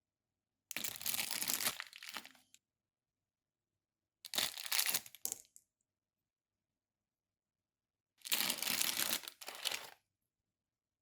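Toy packaging being torn open and crinkled in three separate bursts, each a second or two long, with silence between them.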